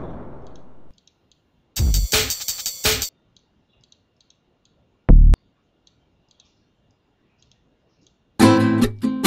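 Sound files previewed one after another in LMMS's sample browser: an explosion sound effect fading away, a brief noisy effect about two seconds in and a short low thump around five seconds, with faint mouse clicks between. Near the end a Latin acoustic guitar sample starts playing plucked notes.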